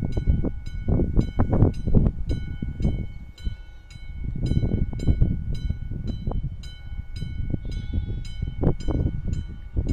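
Classic electromechanical level-crossing warning bell ringing continuously, struck about three to four times a second, signalling that the crossing is closed for an approaching train. An uneven low rumble runs underneath.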